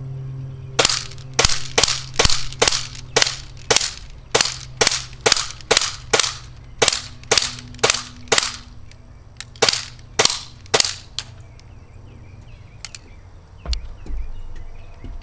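Airsoft Glock 17 pistol fired about twenty times at a steady pace of two to three shots a second, with two short pauses, stopping about eleven seconds in. A few faint clicks follow.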